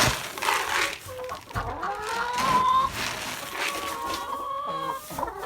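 A backyard chicken flock clucking and calling around feeding time, with several drawn-out calls that rise and hold. Wind gusts across the microphone.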